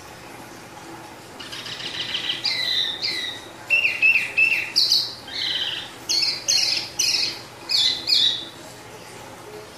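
Caged wambi songbird in full rolling song ('ngerol'): a run of quick, high chirps and whistled notes, short phrases repeated several times, starting about a second in and stopping near the end.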